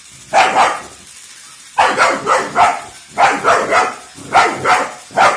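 Black Labrador puppy barking: two barks, a short pause, then a quick run of about eight more.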